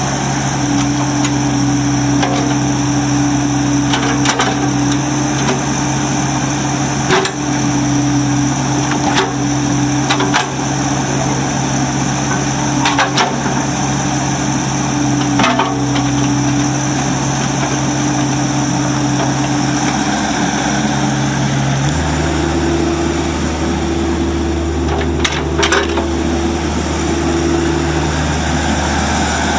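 Bobcat E26 mini excavator's 24.8 hp Kubota diesel running steadily under hydraulic work, with scattered sharp metallic clanks from the bucket and linkage. About three-quarters of the way through, the engine note steps up with more low rumble as the machine turns.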